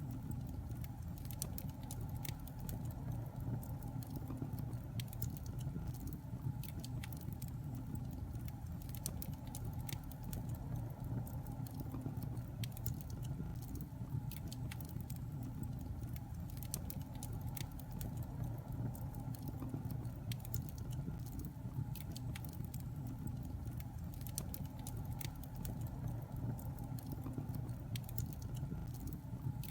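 Wood fire burning in a fireplace: a steady low rumble of flames with frequent small, sharp crackles and pops.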